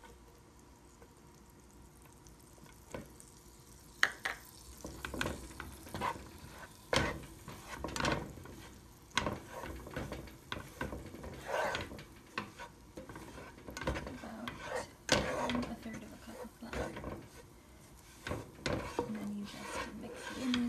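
A spatula stirs and scrapes flour into melted butter in a nonstick pan, working it into a roux. It is quiet for the first few seconds, then irregular scraping strokes follow, with a sharp knock against the pan about four seconds in.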